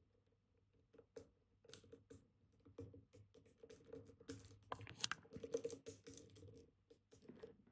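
Small metal clicks and scratching from a dimple pick probing and lifting the pins of a Kaba Titan Combi dimple lock held under tension. The clicks come a few at a time early on and grow into a dense run through the middle.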